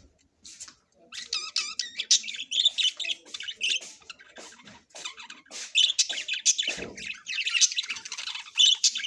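Small pet parrots (lovebirds) chattering and squawking in a rapid, continuous stream of high-pitched chirps, starting about a second in.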